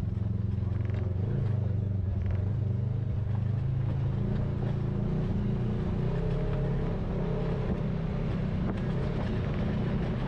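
Polaris RZR side-by-side engine running steadily as it drives along a dirt forest trail, its drone shifting a little up and down in pitch.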